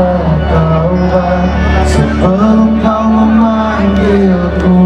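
Live music: a man singing a slow melody with held notes into a microphone over band accompaniment.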